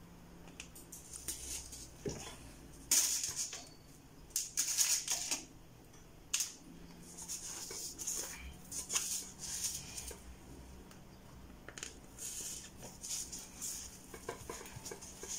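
Irregular short bursts of rustling and scraping as hair wefts and a mesh wig cap are handled and worked by hand, with a faint steady hum underneath.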